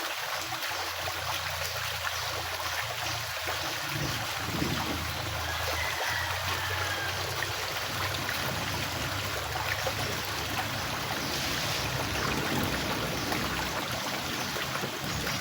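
Stream water flowing steadily, with a low hum underneath that comes in about a second in.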